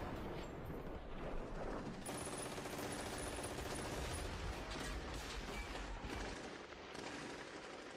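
Faint, continuous crackle of distant gunfire, a battle sound effect of rifle and machine-gun fire, with no single loud shot standing out.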